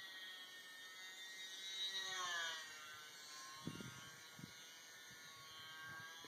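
Faint whine of an E-flite UMX Yak 54's small electric motor and propeller flying overhead, several pitches stacked together. About two seconds in the whine slides down in pitch, then holds steady and lower. A few dull low thumps come near the middle.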